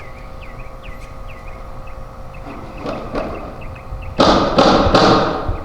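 A small bird chirping over and over, a short hooked note about two or three times a second. About four seconds in, a loud burst of rustling thumps in three quick strokes drowns it out.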